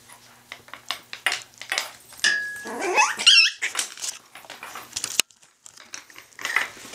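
Yorkie-poo puppies playing: a high, rising yelp about three seconds in, among scattered clicks and scuffles.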